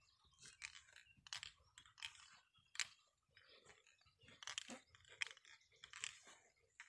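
Faint, irregular crackling and rustling, with short scattered ticks.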